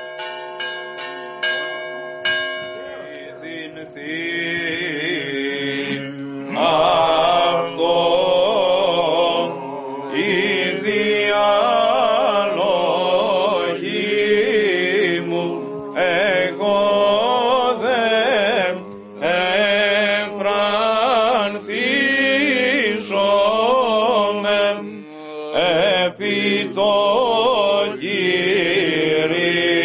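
Church bells ring out in the first couple of seconds and fade. Then Greek Orthodox Byzantine chant begins, sung by men's voices over a steady held drone note (the ison), with short pauses between phrases.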